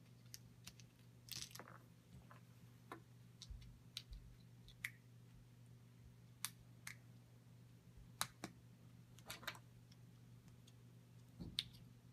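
Faint, scattered clicks of small plastic speed-cube pieces being handled as center caps are snapped on, about a dozen irregular taps, over a low steady hum.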